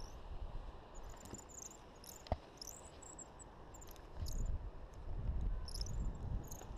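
Wind buffeting the camera microphone, swelling into a low rumble about four seconds in as the paraglider launches, with scattered high chirping calls throughout and one sharp knock about two seconds in.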